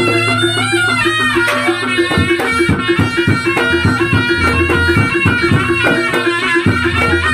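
Reog Ponorogo gamelan accompaniment: a shrill reed pipe (slompret) plays a winding, ornamented melody over a steady pulse of drums and gongs.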